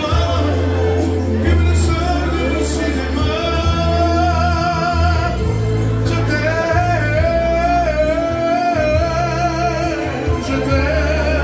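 A man singing into a microphone over music with a strong bass line, holding long notes with vibrato in the second half.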